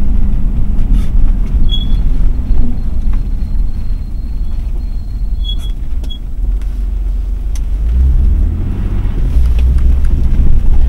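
Mercedes-Benz W126 under way, heard from inside the cabin: a steady low rumble of engine and tyres. It grows a little louder about eight seconds in.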